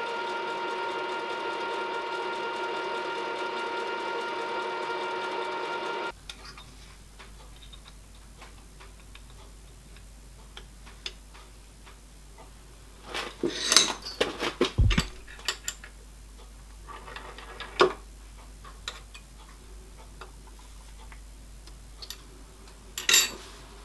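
Milling machine spindle running steadily with a whine of several fixed tones while a small drill bores a tapping hole in a brass eccentric strap; it cuts off suddenly about six seconds in. After that, clicks and knocks of the brass part and steel fixture being handled and set in the machine vise, clustered in the middle and again near the end.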